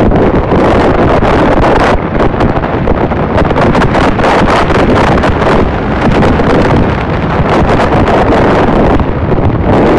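Heavy wind buffeting the microphone from a Toyota Fortuner driving fast over desert sand, with vehicle and tyre noise under it. The rush is loud and uneven throughout, with rapid flutters.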